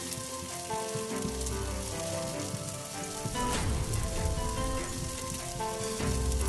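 Chopped onion sizzling as it fries in ghee in a non-stick pan, stirred with a wooden spatula, with background music playing over it.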